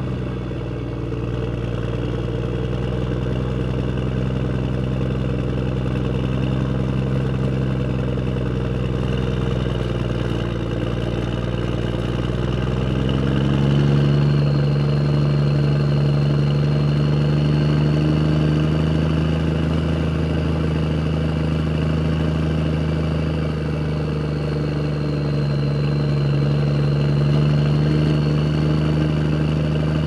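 A vehicle engine running steadily at low revs. About halfway through, its note steps up a little, gets louder and holds there.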